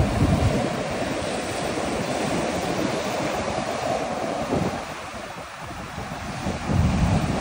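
Ocean surf breaking and washing up a sandy beach, with wind buffeting the microphone in gusts, strongest near the start and near the end.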